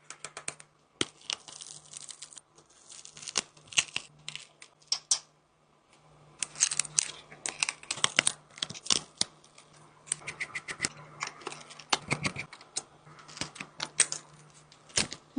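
Small hand tools clicking and scraping against a phone during repair work, in irregular bursts of sharp ticks and scratchy rasps, over a faint steady low hum.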